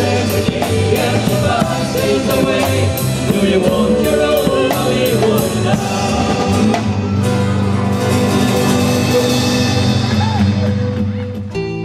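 A song with singing over a drum kit keeping a steady beat, changing right at the end to a quieter instrumental piece.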